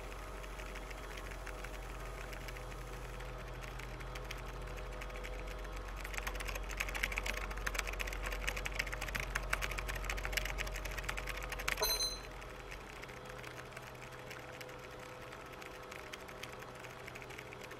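Rapid tapping on a keypad, starting about six seconds in over a steady low electrical hum, and ending about twelve seconds in with a short high electronic beep, after which the hum drops away.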